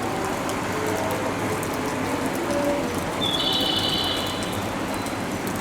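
Railway station platform ambience: a steady hiss. A short, high electronic chirping tone comes in about three seconds in.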